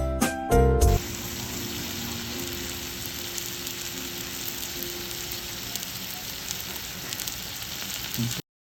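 Food sizzling in a hot pan or on a grill: a steady hiss with small scattered crackles. It cuts off suddenly near the end. Background music plays for about the first second.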